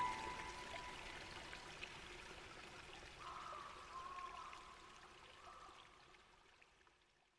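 Ambient music fading out: the last soft tones of an ambient piano piece die away over a bed of rain and trickling water, and the whole mix fades to silence near the end.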